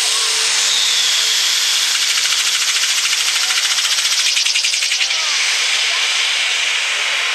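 Light pro stock pulling tractor's turbocharged diesel engine running flat out under load as it drags the sled, with a high whine on top. The sound pulses rapidly for a few seconds midway through.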